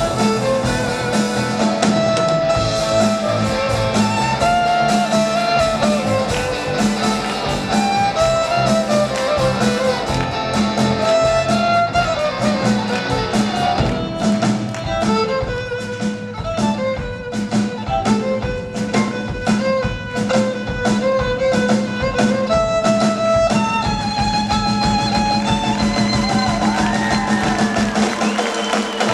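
A rock band playing live: a lead melody over bass and drums, with a steady run of drum hits in the middle.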